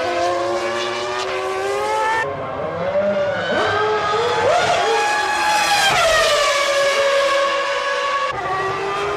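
Formula One cars' 3-litre V10 engines at high revs, the pitch climbing steadily, then rising to a peak and falling away about six seconds in as a car passes. The sound changes abruptly about two seconds in and again near the end.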